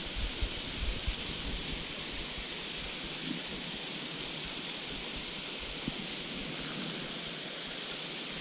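Steady rush of a shallow river running over stones, with low buffeting on the microphone during the first second or so.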